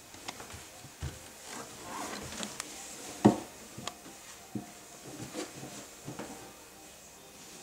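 Soft knocks and thumps of a small child's hands, knees and bare feet on wooden stair treads as she crawls up the stairs, with one louder thump about three seconds in.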